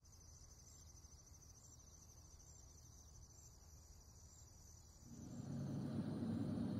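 Crickets chirring faintly and steadily in a high, rapidly pulsing trill. About five seconds in, a louder steady low hum or rumble swells in and carries on.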